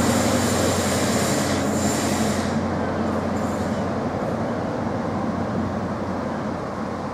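InterCity 225 electric express train running along the platform line: a steady rail rumble over a low steady hum, with a high hiss in the first couple of seconds, slowly getting quieter.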